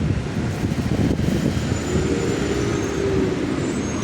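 Steady low rumble of road traffic, with a faint held tone for about a second and a half in the second half.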